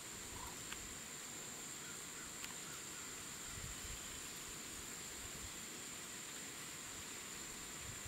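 Quiet outdoor ambience: a faint, steady high-pitched insect trill over a soft hiss, with a few light ticks.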